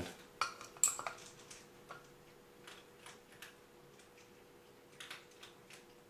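Light plastic clicks and taps as a black plastic 18650 cell holder is handled and set against the plastic cell frames of a battery pack. The knocks are loudest in the first second, with a few more around five seconds in.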